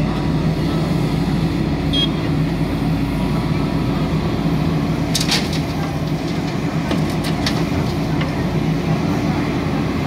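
JCB backhoe loader's diesel engine running steadily under load as the backhoe digs and swings. About halfway through come a few sharp knocks and rattles as soil and stones drop from the bucket into the steel trailer.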